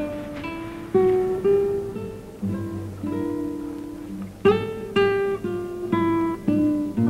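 Acoustic guitar music: a slow run of single plucked notes and chords, each ringing and fading, with the strongest notes about a second in and again around the middle.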